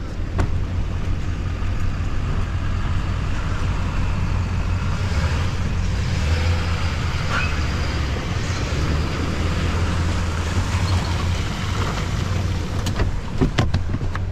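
Pickup truck engine running at low revs as the truck reverses a boat trailer slowly down a ramp, a steady low hum. A few sharp knocks come near the end.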